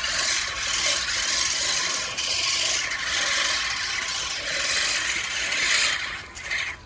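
Earthwise 18-inch reel mower cutting grass: the spinning reel blades make a steady whirring, rasping sound against the cutter bar as it is pushed along. It dies away just before the end.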